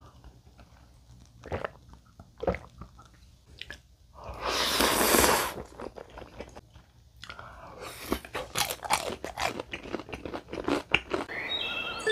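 Close-miked mukbang eating sounds: a few small clicks, a long noodle slurp about four seconds in, then rapid crunching from about eight seconds on, typical of biting into crispy battered tangsuyuk pork.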